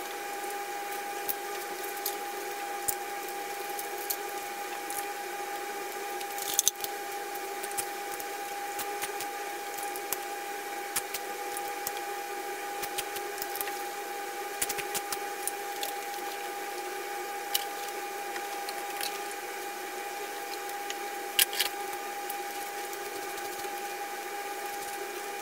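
Scattered light clicks and taps of hand tools and spark plugs being handled at the plug holes of an SR20DET engine, with sharper knocks about six seconds in and near the end. A steady high-pitched hum runs under them.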